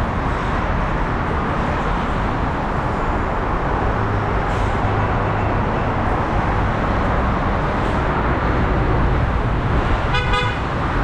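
Steady roar of road traffic on a multi-lane highway, with a low rumble growing from about four seconds in and a short vehicle horn toot near the end.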